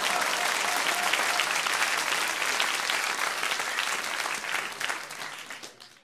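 Theatre audience laughing and clapping, a dense crowd sound that thins out and fades away near the end.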